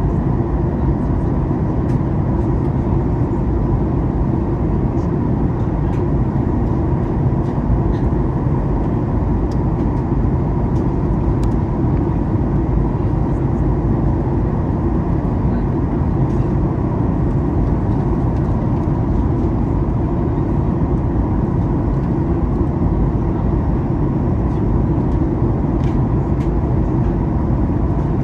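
Steady cabin noise of a Boeing 737 MAX 8 airliner on descent: an even low rumble of engines and airflow with a faint steady tone above it.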